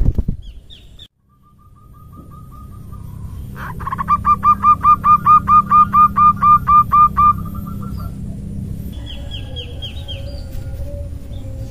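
Zebra dove (perkutut) female call, the 'nutut ngerot' used to lure wild males: faint repeated notes that swell into a rapid run of about fifteen short, even coos, about four a second, then stop. Near the end another bird gives a quick run of high falling notes.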